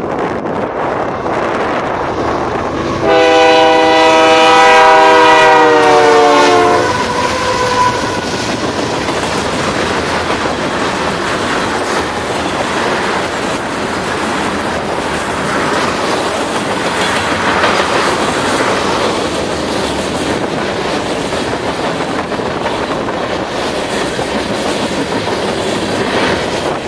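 A GE ES44AC diesel locomotive sounds its multi-note horn in one long blast about three seconds in. The blast slides down in pitch over roughly four seconds as the locomotive passes. After it come the steady rumble and clickety-clack of a long string of tank cars rolling by.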